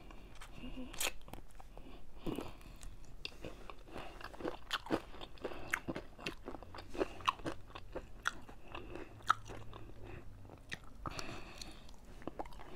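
Close-miked chewing of crispy fried chicken wings: irregular crisp crunches and crackles as the fried skin is bitten and chewed.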